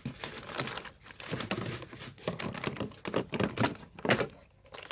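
Small plastic parts of a miniature toy shopping trolley being handled and fitted together: a run of light, irregular clicks and rustles, with a louder cluster of clicks about four seconds in.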